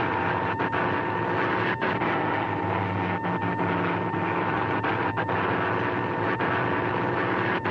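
Piston-engined propeller airliner droning steadily in flight, with a steady high whine over the engine note and scattered crackles typical of an old film soundtrack.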